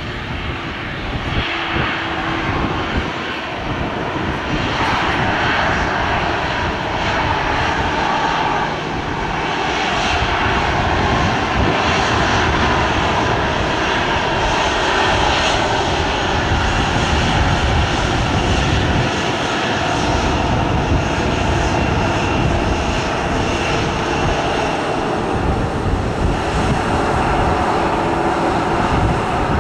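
Ryanair Boeing 737-800's twin CFM56 jet engines running at low power as the airliner taxis along the runway: a steady rushing jet noise with a faint whine, rising over the first few seconds and then holding level.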